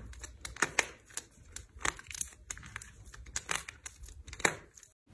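Slime being worked by hand, giving a run of irregular crackles and pops. The sound cuts off abruptly near the end.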